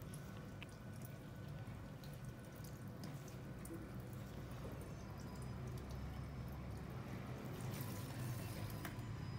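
Faint water dripping and trickling over a steady low hum, with scattered small clicks.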